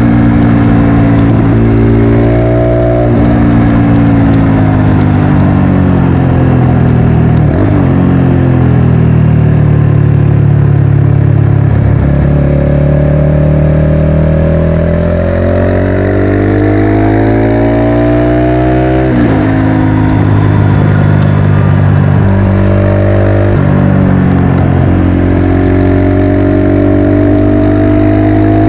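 Motorcycle engine under way, its revs climbing and falling, with several sudden drops in pitch where gears change.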